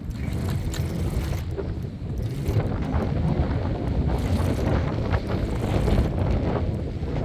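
Wind buffeting the microphone: a loud, irregular, low rumble with no steady tone.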